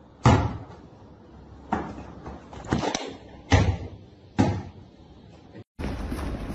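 Six dull knocks or thumps at irregular spacing, two of them close together near the middle. Near the end they give way to a steadier rustling noise.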